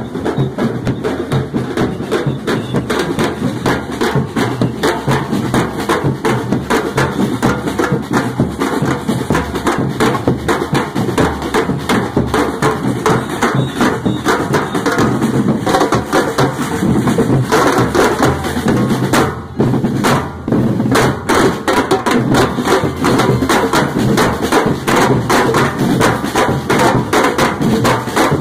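Street drum band playing a fast, steady driving rhythm on large strap-carried bass drums and snare drums, with a brief break about two-thirds of the way through.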